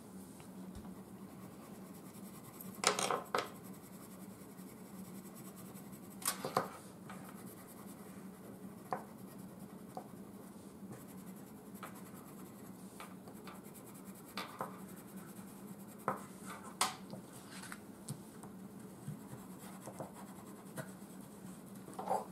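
Wax crayons scratching and rubbing on paper as two people colour, with scattered short clicks and taps, the loudest a few seconds in and again near the middle and later on, over a steady low hum.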